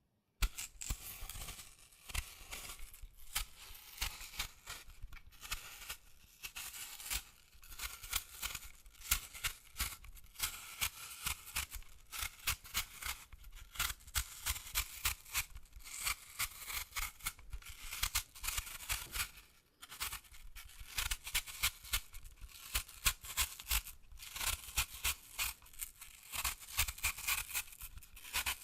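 An apple being peeled: a continuous run of quick, crisp, crackling scraping strokes as the skin is cut away, with a brief pause about two-thirds of the way through.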